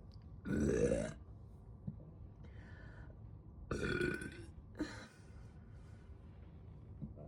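A person burping loudly twice, about half a second in and again near four seconds in, the first burp rising in pitch, with two fainter, shorter sounds between and after.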